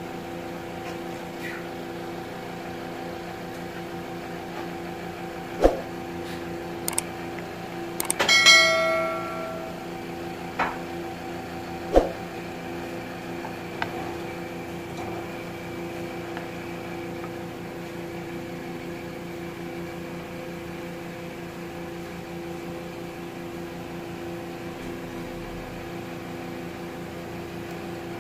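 Kitchen cooking sounds over a steady hum with several held tones: a couple of sharp knocks of utensils against the pot, and about eight seconds in a bright metallic ring that dies away within about a second.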